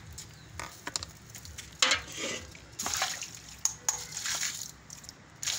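Cold water poured and splashing over a hot, lidded tin can. A sharp metallic crack about two seconds in is followed by several splashing bursts and further clicks as the can crumples inward, its steam condensing in the sudden cold.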